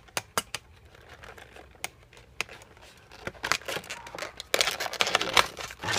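Clear plastic blister packaging of a carded action figure being handled as it is opened: a few sharp clicks and taps, then plastic crinkling and crackling from about three and a half seconds in, loudest near the end.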